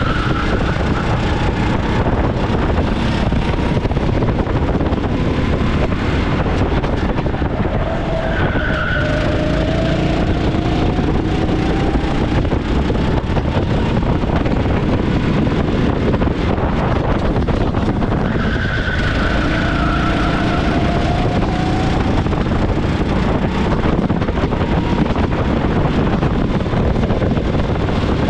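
390 cc kart engine running hard at speed over a steady rushing noise, heard from onboard the kart. Twice, about a third and two-thirds of the way through, the engine note drops and then climbs slowly again as the kart slows for a corner and accelerates out.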